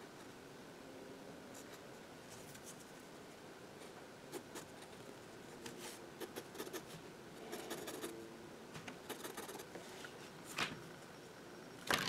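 Fineliner pen nib scratching on sketchbook paper in quick short strokes. The strokes come in bunches from about a third of the way in, and there is a louder scrape near the end.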